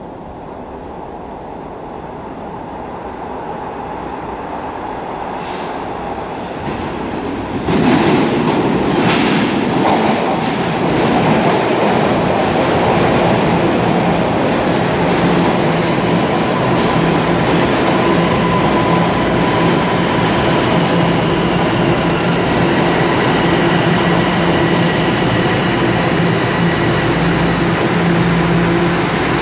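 TTC Toronto Rocket subway train approaching through the tunnel, growing steadily louder, then pulling into the station with a sudden jump in loudness and a run of wheel clacks about eight seconds in. It carries on running along the platform, with steady humming tones coming up over the wheel noise in the second half.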